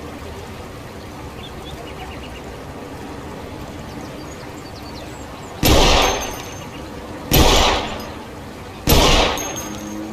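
Three pistol shots about a second and a half apart, each with a sharp crack and a short decaying tail, after several seconds of steady background hiss.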